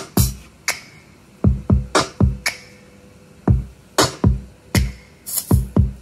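Anker Soundcore Motion Plus stereo Bluetooth speaker playing music with a deep, punchy drum beat: heavy low thumps mixed with sharp, bright hits.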